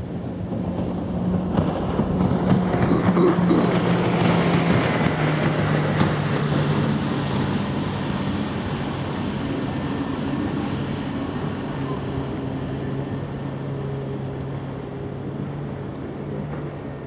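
Steady low drone of a ship's engine, under a rushing of water and wind that swells over the first few seconds and then slowly eases off.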